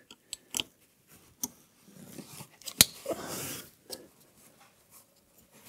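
Small metal safety-cable clips on a lift-up roof bed's latch being clicked back into place, a handful of sharp clicks with the loudest a little under three seconds in, and soft rustling of handling in between.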